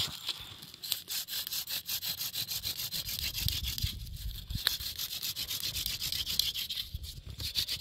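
Fast, rhythmic hand scraping or rubbing strokes, several a second, with a brief pause near the end.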